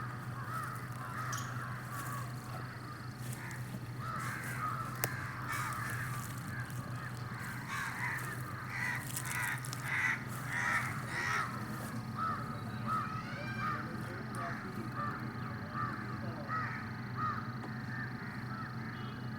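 Birds calling: many short, repeated calls, crowded together around the middle and then coming at a steadier, slower pace, over a steady low hum.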